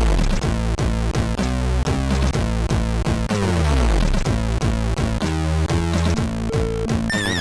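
Chiptune music played on the MOS 6581 SID sound chip of a real Commodore 64: bass notes sliding down in pitch again and again over steady percussive hits and quick stepping notes. A wobbling high tone comes in near the end.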